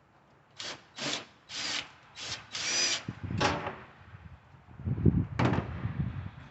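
Cordless drill backing out screws from a stove's sheet-metal access panel in a series of short bursts, then a lower clatter of the panel being handled, with one more brief burst.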